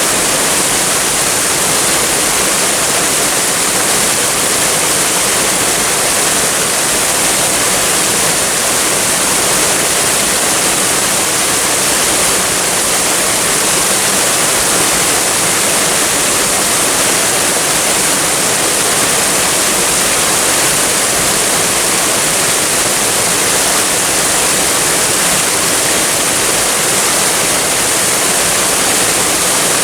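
Waterfall: water falling and rushing in a steady, unchanging hiss.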